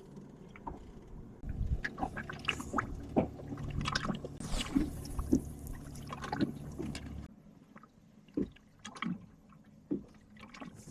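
Water lapping and sloshing against a small boat's hull, with scattered light knocks. A steady low hum runs underneath and stops suddenly about seven seconds in, leaving only a few faint knocks.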